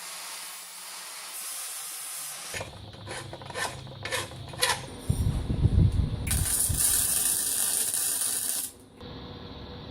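Workshop sounds of metal parts being handled: a series of sharp clicks and knocks, a low rumble, then a loud hiss that lasts about two seconds and cuts off suddenly.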